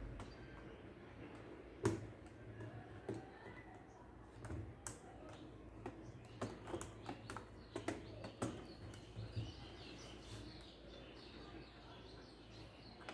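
Faint clicks and light taps of small laptop parts and tools being handled, over a low steady hum. There is one sharp click about two seconds in and a cluster of clicks between about six and nine seconds.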